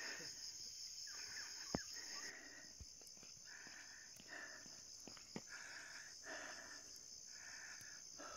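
Faint insect chorus, a steady high-pitched buzz, with short hissing sounds about once a second and a few sharp clicks.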